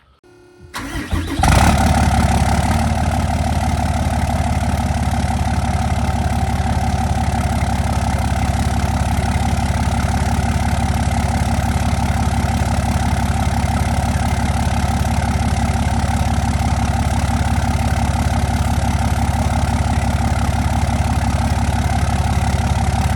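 Old Cummins diesel engine cold-starting: a brief crank about a second in, it catches, then idles steadily.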